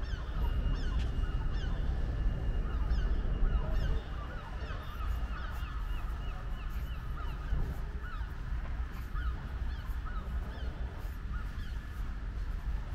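A flock of birds calling over and over, many short rising-and-falling calls overlapping several times a second, over a steady low rumble.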